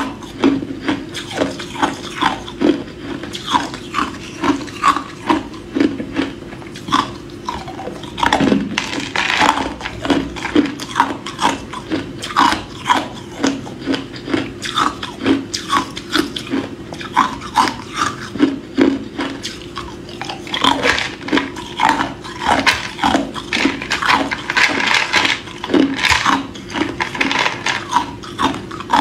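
Hard clear ice cubes being bitten and chewed: a continuous run of sharp cracks and crunches, about two a second.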